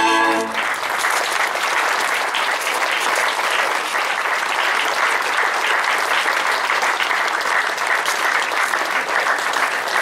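The last note of the dance music ends about half a second in, and an audience then applauds steadily.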